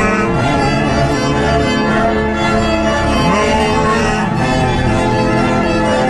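Orchestral background music led by bowed strings, sustained and steady.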